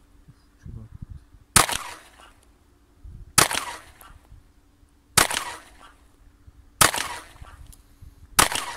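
Glock 43 9 mm compact pistol fired five times in slow, aimed succession, about one shot every 1.7 seconds, each shot followed by a short fading echo.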